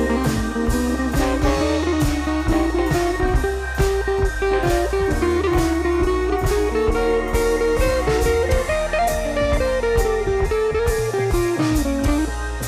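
Background music: a blues-style electric guitar melody over bass and a steady drum beat.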